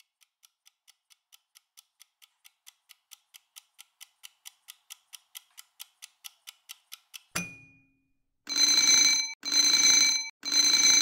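Countdown timer sound effect: fast, even clock ticking, about four or five ticks a second and growing louder, then a single knock and three long alarm rings about a second apart as the countdown ends.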